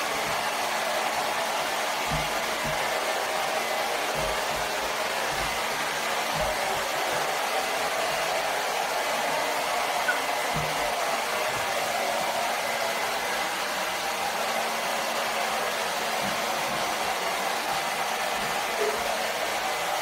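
Hand-held hair dryer running steadily: a continuous rushing blow of air with a faint hum under it, and a few soft low thumps.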